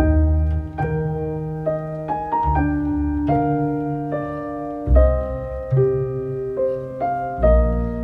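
Background solo piano music: a slow melody of single struck notes over deep bass notes that come about every two and a half seconds.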